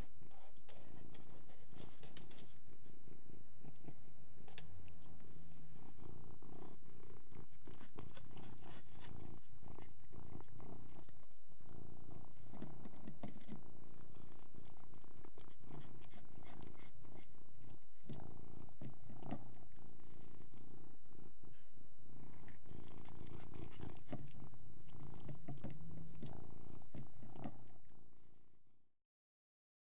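Domestic cat purring, a continuous low rumble with a few brief breaks, fading out near the end.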